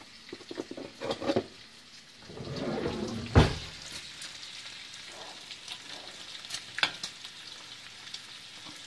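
Food sizzling steadily in a frying pan, with a few sharp clicks of a utensil against the pan; the loudest comes about three and a half seconds in.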